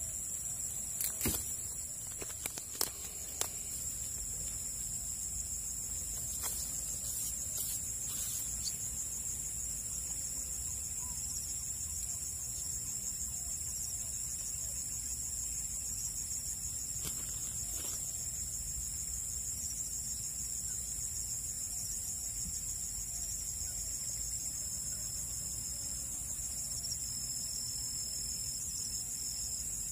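Steady, high-pitched insect chorus, a continuous shrill drone. A few brief clicks and knocks fall in the first several seconds, and two more come later on.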